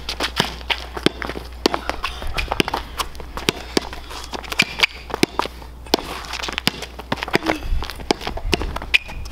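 A basketball bouncing on asphalt and sneakers scuffing and running, heard as many sharp, irregular knocks.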